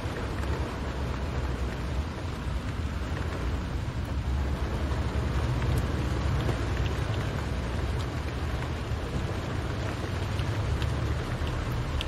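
Rain falling on a car's roof and windscreen, heard from inside the cabin over a steady low rumble of engine and tyres on the wet road. A few faint drop ticks stand out.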